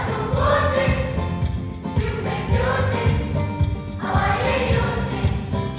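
Children's choir singing together in short, repeated rising-and-falling phrases, over a steady rhythmic low beat.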